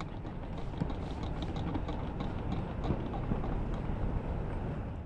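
Wind buffeting the microphone as a steady low rumble, with a scatter of light, irregular clicks over it.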